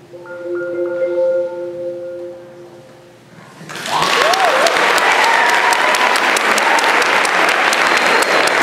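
Concert marimba playing its final notes, a chord held and fading for about three seconds. Then applause breaks out loudly with cheering and a couple of whoops, and carries on.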